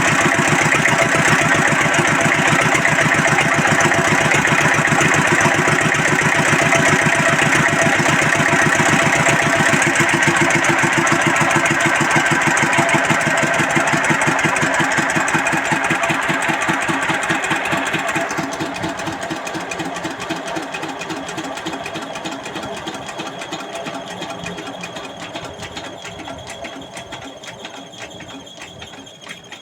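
Field Marshal single-cylinder diesel engine driving a generator, running with a steady, even thudding beat. About two-thirds of the way through the sound starts to fade and keeps getting quieter, as the engine runs down.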